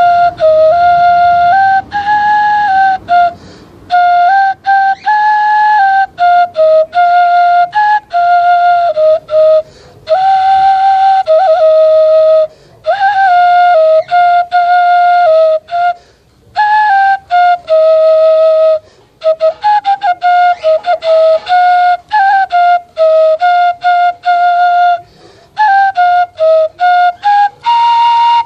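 Homemade bamboo native-style flute playing a slow melody of held notes that step up and down, breaking off briefly between phrases for breath.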